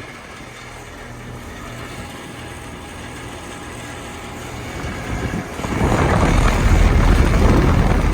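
A 2007 Heil Quiet Comfort air-conditioner condensing unit running with a steady low hum. About five and a half seconds in, a much louder rough, rushing rattle rises and holds to the end. The unit has a lot of rattle, which the owner puts down to a broken coil.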